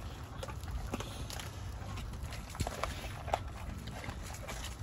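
American bully dogs at raw whole chicken on concrete: scattered sharp clicks and taps, with two louder ones past the middle.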